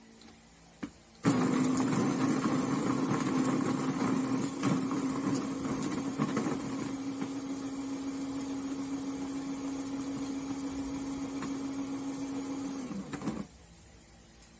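Electric coffee grinder's motor starting about a second in after a click and grinding a scoop of beans at a coarse setting with a steady hum, rougher and louder for the first few seconds, then running on evenly until it stops shortly before the end.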